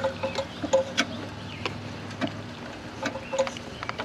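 A screwdriver prying at an engine's oil pump pickup tube to work it out of its O-ring seal: scattered metal clicks and taps mixed with short squeaks.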